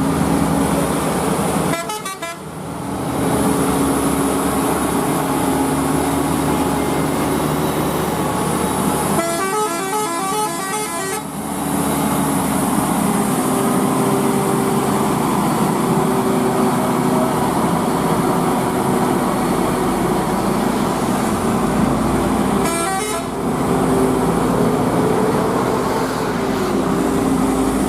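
Heavy truck engine running steadily under load on a steep climb, with a horn sounding for about two seconds near the middle and briefly twice more, early and near the end.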